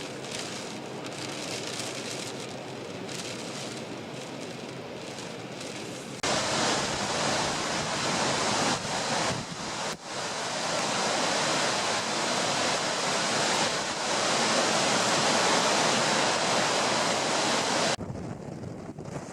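Wind and surf on Lake Superior in a strong gale, with wind buffeting the microphone. The noise jumps much louder about six seconds in and drops back sharply near the end.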